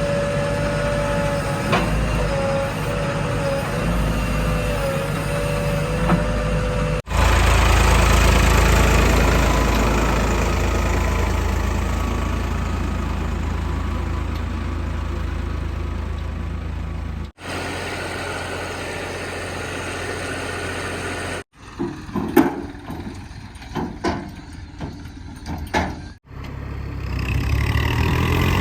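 Diesel engines of a JCB 3DX backhoe loader and a Tata tipper truck running, with the sound changing abruptly several times. A steady wavering whine sits over the engine in the first several seconds, a heavy low engine rumble follows, and a stretch of irregular knocks and clatter comes in the second half.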